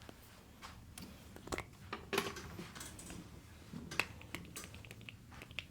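Irregular light clicks and taps, a few a second, coming faster near the end.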